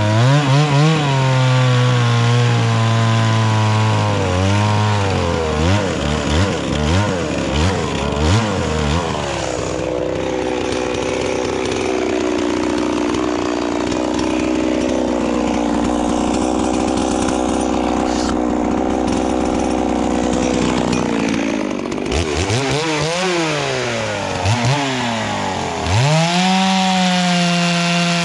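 Gas chainsaw bucking a log under load, then blipped in quick revs and left idling steadily for about ten seconds. It is blipped again and revved up to a high steady pitch into the next cut near the end.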